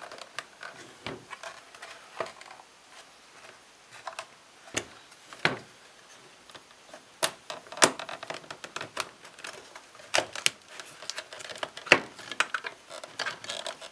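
Irregular clicks and knocks of a plastic speaker housing and its parts being pried at and handled, with a few small tools set down on a wooden table. The clicks come thicker and sharper in the second half.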